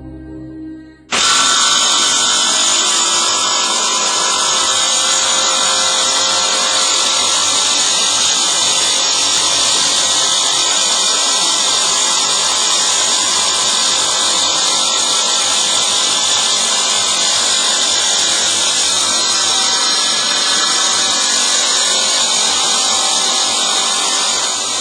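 Power tool spinning a diamond saw blade, switching on suddenly about a second in and running steadily with a loud, high-pitched whine and ringing, dying away at the end.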